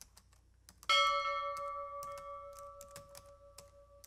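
Typing sound effect, a run of sharp keyboard-like clicks as on-screen text types out, with a bell ding about a second in that rings on and fades away over about three seconds.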